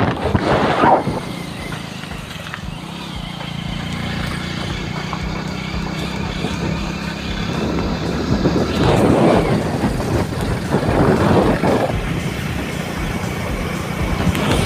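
Vehicle engine running steadily with road and wind noise while travelling, with louder rushing noise in the first second and again twice between about nine and twelve seconds in.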